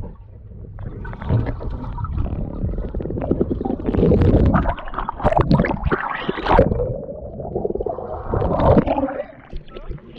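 Pool water gurgling and rumbling, muffled by a camera microphone held underwater, then splashing and sloshing as the camera breaks the surface about halfway through.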